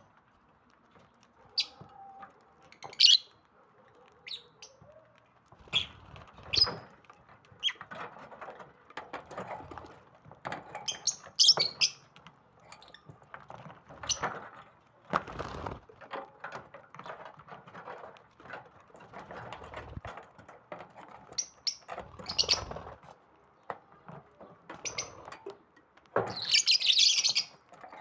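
Lovebirds giving short, sharp chirps at irregular intervals, with a dense run of chirping near the end, among rustling and knocking noises.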